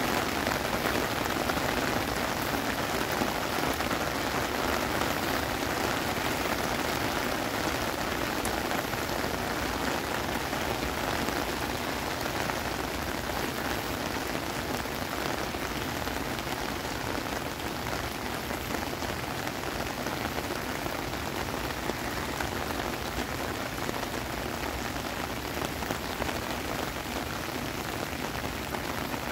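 Heavy rain falling steadily on wet paving, grass and puddles, a dense even downpour that eases slightly about halfway through.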